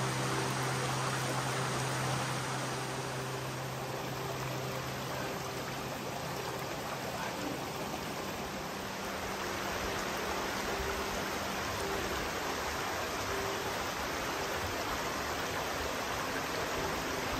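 Rushing water of a river or waterfall, a steady even hiss. A low steady hum sounds under it and fades out about five seconds in.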